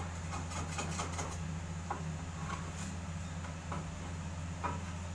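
Steady low machine hum with scattered light clicks and knocks.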